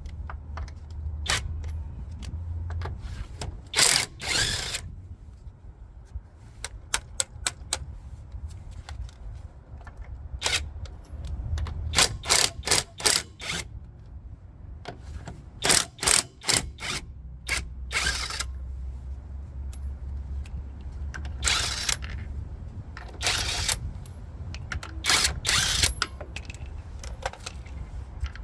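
Alloyman impact wrench hammering lug nuts loose, in a series of short runs of rapid hammering separated by pauses, over a low steady rumble.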